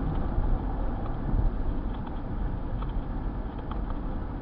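Road and engine noise inside a moving car: a steady low rumble with a few faint clicks.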